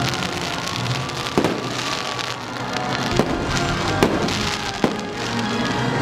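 Shipboard fireworks going off: four sharp bangs roughly a second apart, with crackling between, over loud show music.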